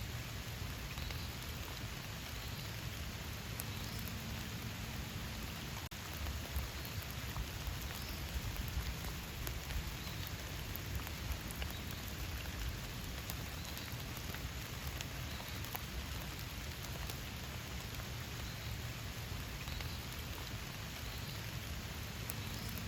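Steady rain falling in a forest, an even hiss of drops on leaves, with a low rumble that swells for a few seconds about a quarter of the way through.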